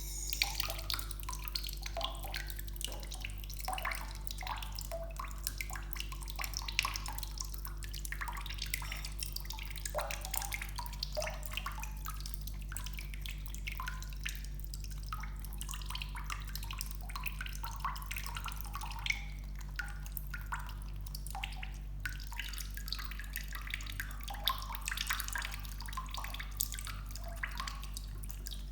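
Bathtub faucet left running in a thin trickle, water dripping and splashing irregularly into the filled bath.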